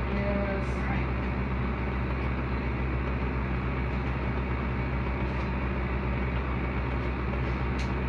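Amana packaged window air conditioner running steadily: a low, even hum under a constant rush of air from the unit.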